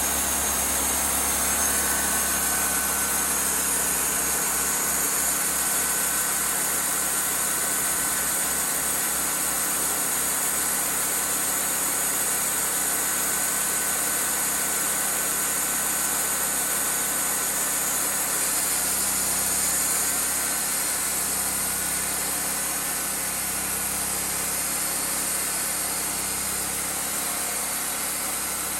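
Wood-Mizer LT40 portable band sawmill running steadily.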